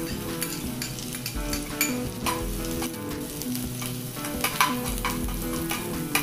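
Minced garlic sizzling in hot cooking oil in a frying pan, with a metal spoon scraping and tapping against the pan as it is stirred.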